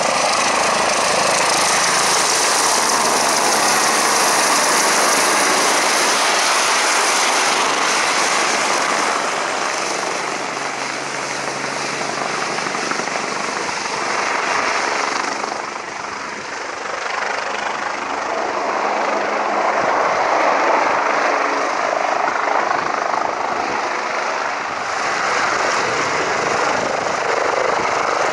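Twin-engine BK 117 police helicopter's turbines and main rotor running at close range as it flies and hovers: a steady, loud engine and rotor noise that dips briefly about halfway through.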